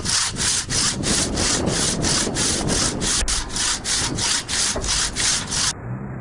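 Hand saw cutting through wood in quick, even back-and-forth strokes, about three a second, stopping abruptly near the end.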